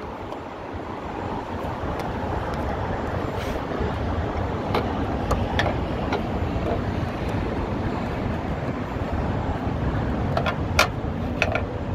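Steady rumble of road traffic, with a few sharp clicks as the old hood strut's end clip is worked loose and the strut is handled, the loudest click near the end.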